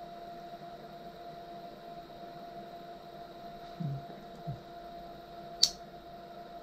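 Steady faint electrical whine from the powered DIY CNC rig's stepper drivers and motors, with a single sharp click a little past halfway and a man's two brief low hums just before it.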